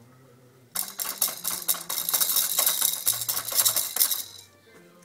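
A plastic baby toy rattling as it is shaken, a rapid clatter starting about a second in and lasting about three and a half seconds.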